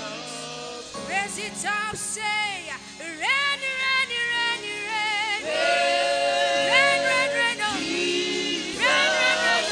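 A woman singing a gospel worship song into a microphone over sustained instrumental backing. Her voice sweeps up and down in long ornamented runs, with wavering held notes.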